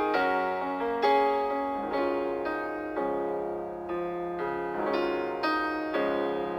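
Background music: a gentle solo piano playing soft, slow notes that ring and fade.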